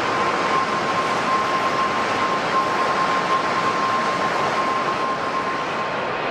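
Jet airliner engines running: a steady rushing noise with a thin high whine that stops near the end.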